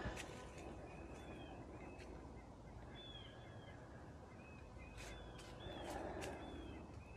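A songbird calling faintly: short, high, arched chirps repeated about eight times, mostly in pairs, over a low outdoor hiss with a few light clicks.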